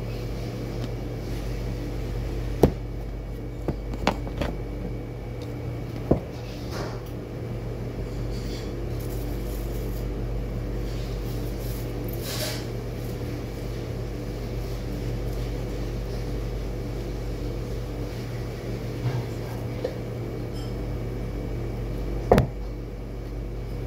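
Shredded cabbage filling being tossed by hand in a large metal pot: soft rustling with a few sharp knocks and clinks of the pot, the loudest a little over two seconds in and again near the end, over a steady appliance hum.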